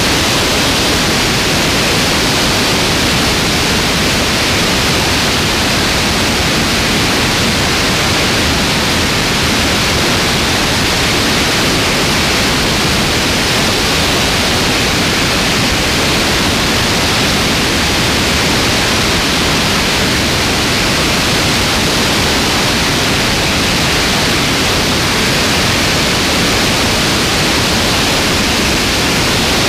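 Steady, loud rush of airflow over a wing-mounted camera on a light airplane in flight, with no engine or propeller tone standing out.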